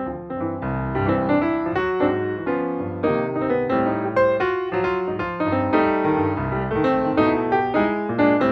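Background music led by piano, a steady flow of notes and chords.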